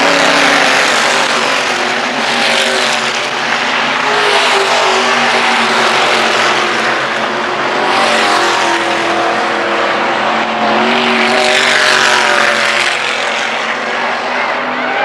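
Dirt-track race cars running at racing speed around the oval, their engines rising and falling in pitch. The engine noise swells and fades several times as cars go by.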